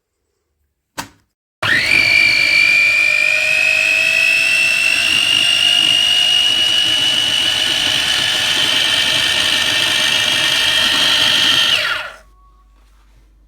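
A click, then a small electric motor starts, runs at a steady high whine for about ten seconds with its pitch creeping slowly upward, and winds down with a falling pitch near the end.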